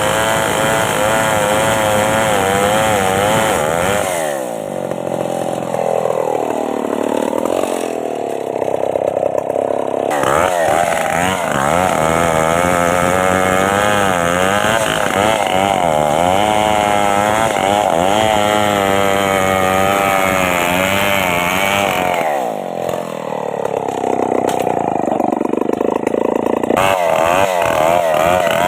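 Stihl chainsaw running at high revs, its pitch wavering. About four seconds in the revs fall away, and the saw is revved back up some seconds later; the same dip and rise come again about twenty-two seconds in.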